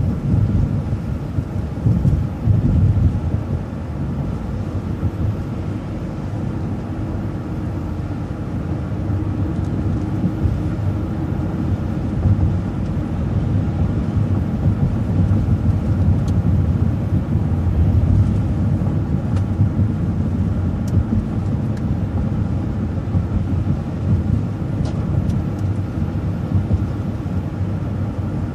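City transit bus driving along, heard from inside: a steady low rumble of engine and road noise.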